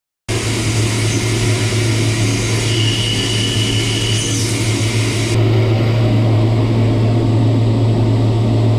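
CNC multi-tasking turning center running a machining cycle: a loud, steady low hum with a hiss over it. It starts abruptly, the hiss drops away about five seconds in, and a brief high whine sounds around three seconds in.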